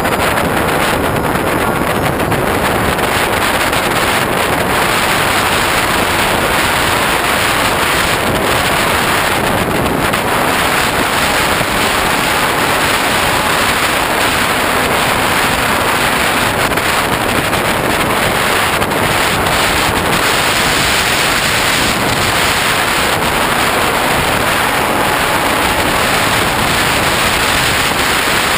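Steady loud wind rush over a GoPro camera mounted on a Hobbyking Bixler RC model plane in flight, the airflow buffeting the microphone.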